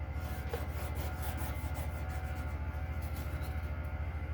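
Steady low hum with a fast, even flutter, under faint rubbing from a line being marked on the sheet-metal panel.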